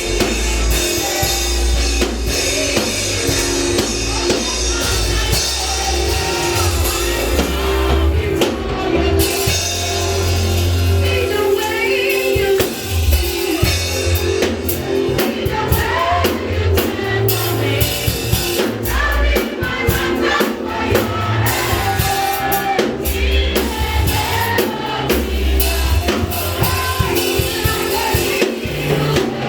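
Live church worship music: a band with drum kit and bass playing while voices sing.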